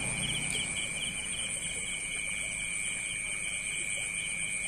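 Night insects trilling: two steady high-pitched trills with a faster pulsing chirp running over them.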